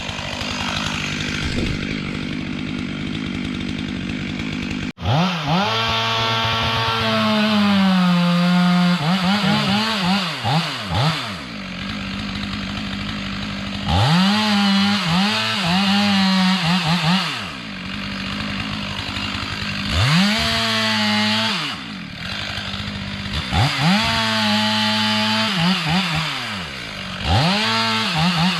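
Two-stroke chainsaw felling ash trees: revved hard about five times, the pitch wavering while it is held, then dropping back to a lower run between revs.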